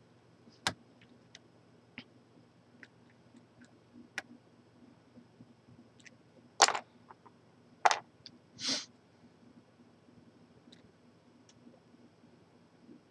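Scattered small metallic clicks and ticks of a lock pick and tension wrench working in the keyway of a large Corbin padlock. There are three louder clacks, the second and third close together in the middle, then a short scrape just after.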